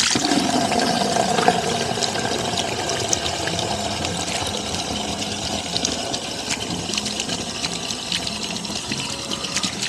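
Water running steadily from a hose into a chicken waterer, filling it.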